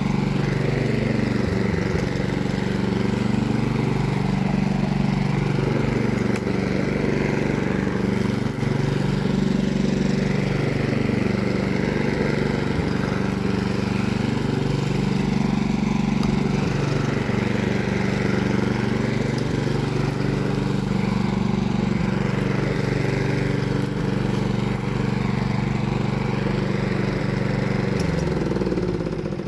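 Petrol walk-behind lawn mower's single-cylinder engine running steadily under load while the mower is pushed through dry grass, cutting it.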